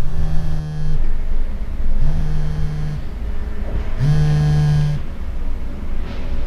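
Mobile phone buzzing with an incoming call: three buzzes about a second long, a second apart.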